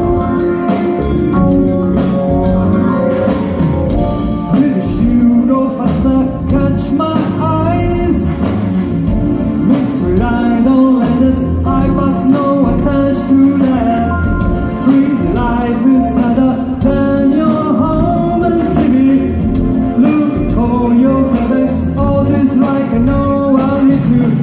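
A rock band playing a song, with a singing voice over guitar and a steady beat.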